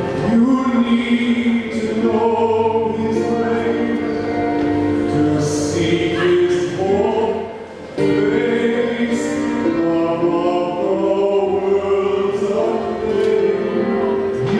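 Voices singing a song from a stage musical over instrumental backing, with a short dip in the sound about halfway through.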